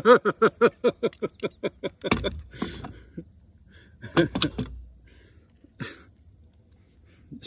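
A man laughing heartily: a quick run of about a dozen "ha"s over the first two seconds, falling in pitch, then a shorter burst of laughter about four seconds in.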